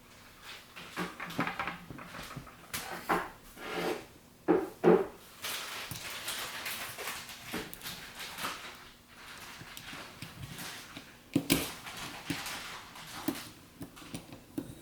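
Small metal lens parts being handled and fitted: irregular clicks, taps and scraping as the rear aperture adjustment plate of a Canon FD 50mm f/1.8 lens is worked into place, with a few sharper knocks about five seconds in and again past eleven seconds.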